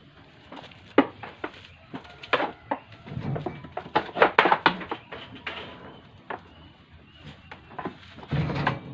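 Irregular knocks and clatters of a goat's hooves and the wooden stand's planks as its hind leg is grabbed and tied with rope, with a dense run of knocks around the middle and a heavier thump near the end.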